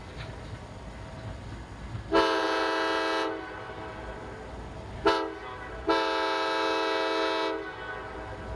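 CSX diesel locomotive's air horn sounding a long blast, a short one and a long one, the close of the long-long-short-long grade-crossing signal, over the low rumble of the approaching train.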